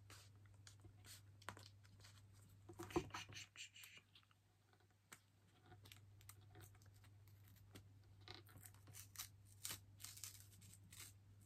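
Faint paper handling as a paper band is worked off a small stack of art cards: scattered light rustles and small clicks, loudest about three seconds in, with a brief lull a little after that.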